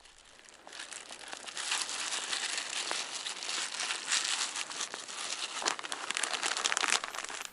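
Krill and dry groundbait powder being mixed into chum, a dense crinkling, crunching sound full of small clicks that builds up about half a second in and runs on, uneven.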